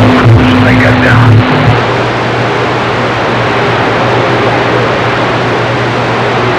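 CB radio receiver on AM channel 6: a strong, garbled skip transmission carrying a steady low tone cuts off a little under two seconds in, leaving loud, even static hiss from the open channel.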